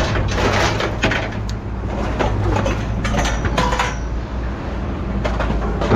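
Scrap metal being handled and pulled loose, with repeated clanks, rattles and scraping, over a steady low engine hum.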